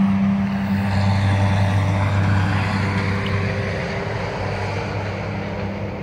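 A steady low engine drone that slowly fades.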